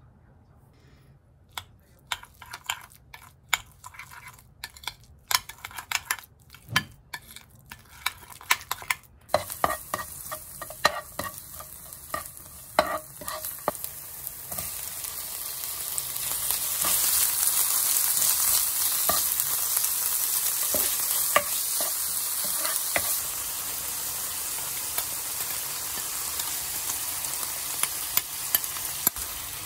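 A metal spoon clinking and scraping against a glass bowl while stirring a thick chili-paste sauce, in sharp separate ticks. Then oil sizzling in a nonstick frying pan as chopped scallions and then squid fry, with a spatula scraping and tapping the pan; the sizzle grows much louder about halfway through and stays loud.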